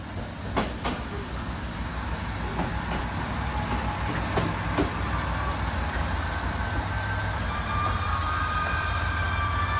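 JR Kyushu KiHa 220 diesel railcar pulling into the platform, its diesel engine humming and its wheels clicking over rail joints, growing louder as it draws alongside. High squealing tones come in near the end as it brakes.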